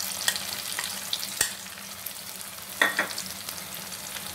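Diced onion and capsicum sizzling steadily in hot oil in a wok as tomato sauce is scraped in. Utensils give a sharp click about a second and a half in and a short ringing clink just before three seconds.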